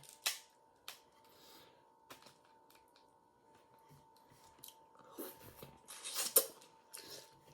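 Eating at a seafood boil: crab shell cracking and crunching, with chewing and lip smacks. Scattered sharp cracks come first, then a cluster of louder crunches and smacks from about five seconds in.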